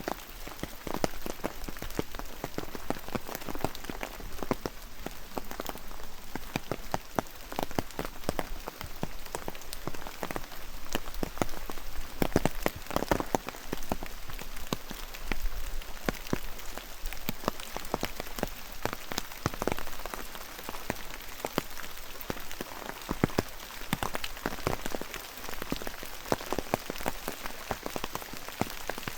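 Steady rain, with many individual drops landing close by as sharp, irregular taps over the even hiss of the downpour.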